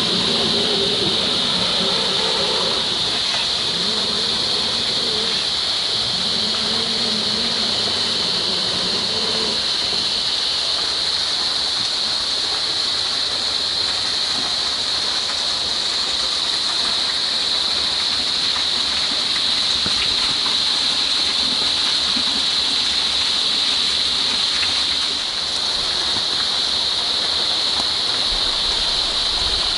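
Steady hiss of rain falling through the forest. A fainter lower whir, from the RC crawler's brushed motor and drivetrain, is heard in about the first ten seconds and then fades.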